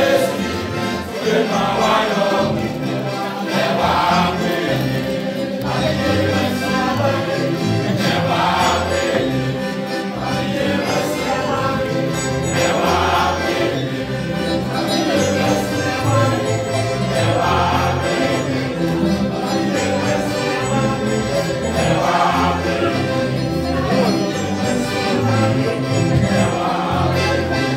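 A men's gospel choir singing, with loud sung phrases swelling about every four to five seconds over steady low notes.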